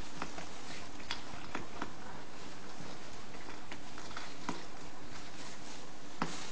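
Newborn puppies stirring in straw bedding: scattered soft clicks and rustles over a steady background hiss, with one sharper click near the end.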